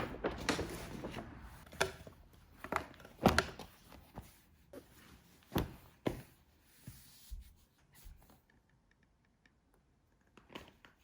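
A run of irregular knocks and taps, as of objects being handled and set down, thinning out and going quiet over the last few seconds.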